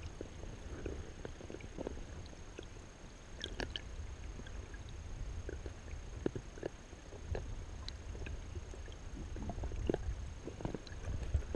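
Muffled low rumble of moving river water, with scattered small knocks and clicks.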